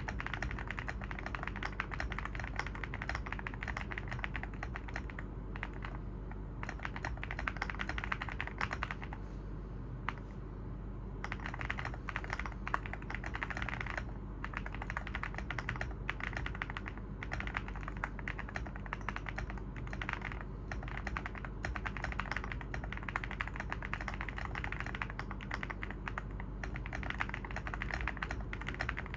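Evoworks EVO80 mechanical keyboard with Oat linear switches on a polypropylene (PP) plate, typed on in quick continuous runs of keystrokes, with a couple of short pauses, the longest about ten seconds in.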